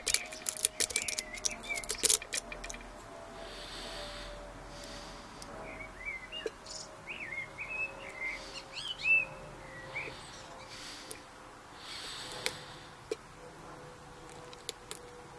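Quick run of small metallic clicks as lock picks work the pins of a five-pin laminated padlock, then a bird chirping several times in short gliding notes a few seconds later.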